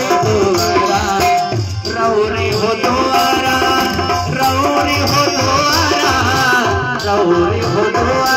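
Live Indian devotional bhajan music: an electronic keyboard melody over a steady tabla-style hand-drum rhythm.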